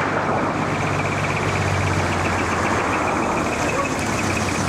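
A large decorated truck's engine running with a steady low hum that fades about halfway through, over a steady noisy background.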